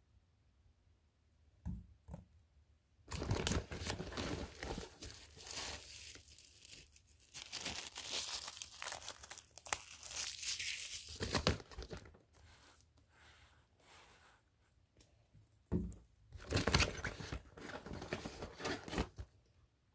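Fireworks packaging rustling and crinkling in two long stretches, with a short dull knock just before each.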